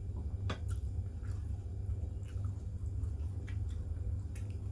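Chewing and small mouth noises of people eating, with scattered short clicks at irregular spacing, over a steady low hum.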